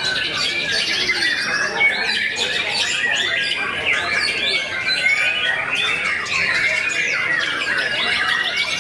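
Many caged white-rumped shamas singing over one another: a dense, unbroken tangle of quick whistled and warbled phrases.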